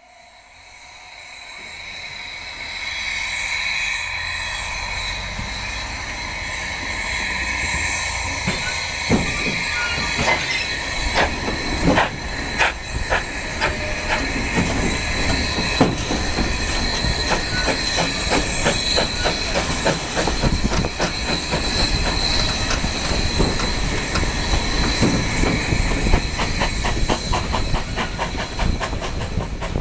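A 760 mm narrow-gauge train rolling round a curve. The wheel flanges squeal in steady high tones over the running rumble. From about nine seconds in, rapid clicking of the wheels over the rail joints joins in. The sound fades in over the first few seconds.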